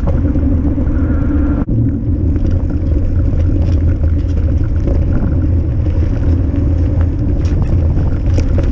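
Steady, loud rumble and hum of a mountain e-bike riding along a road, tyre noise and wind on a helmet-mounted camera, with a brief drop-out about two seconds in.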